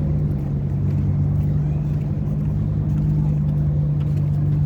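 Street traffic noise with a steady low engine-like hum.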